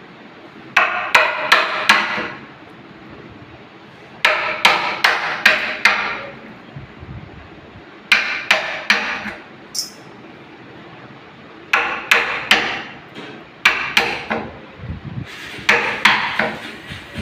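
Hammer blows struck in quick bursts of four to six strokes, with short pauses between bursts. Each blow rings a little, as when cutting the recess for a door lock in wood.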